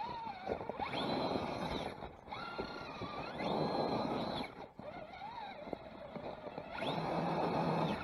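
Electric motor of a radio-controlled scale Ford truck whining in repeated throttle bursts, its pitch rising and falling with the throttle, as the tyres churn through deep snow.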